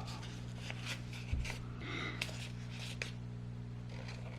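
Trading cards being handled and slid against each other: soft rustles and small clicks at irregular intervals, over a steady low electrical hum.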